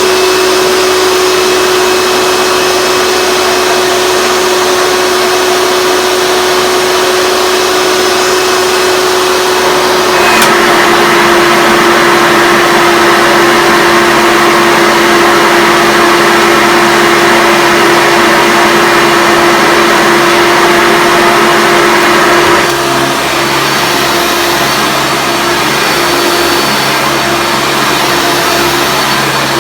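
Hoover Preferred Elite upright vacuum cleaner's 7.2 amp direct-air motor running with a steady whine. About ten seconds in the airflow gets louder and more hissing. A little past two-thirds through it drops back, with a lower hum added.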